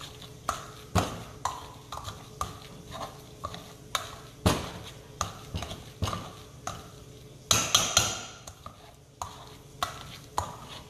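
Boiled potatoes being mashed by hand in a bowl, the utensil knocking against the bowl about twice a second. A louder, quicker flurry of strokes comes a little past halfway.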